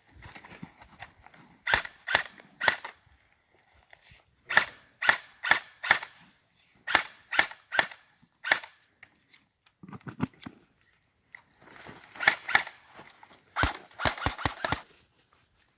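Sharp clicks and knocks of flag clips being unclipped and snapped shut and a flag handled in and out of a jar, in scattered groups with a quick run of clicks near the end.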